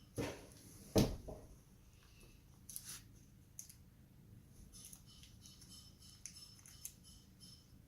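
A new laptop LCD panel being handled with its protective plastic still on: two knocks within the first second, the second louder, then scattered light clicks and ticks of plastic.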